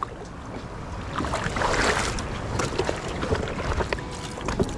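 Small sea waves splashing and lapping against a kayak's hull, with a louder splash about a second and a half in and scattered light knocks. Wind rumbles on the microphone.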